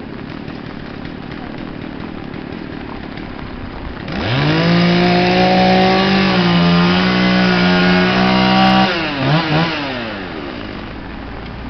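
Two-stroke chainsaw revved quickly to full throttle about four seconds in and held steady for about five seconds. It is then released, with two short blips of the throttle before it falls back to idle.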